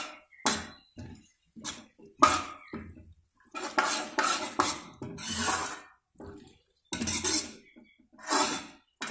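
Steel spoon scraping and knocking against a metal kadhai in short, irregular strokes, stirring diced bottle gourd into the spices.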